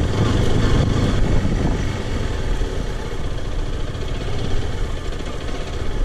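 Zontes X1 350 motorcycle's liquid-cooled single-cylinder engine running, with a dense, steady mix of engine and road noise that eases slightly after about two seconds.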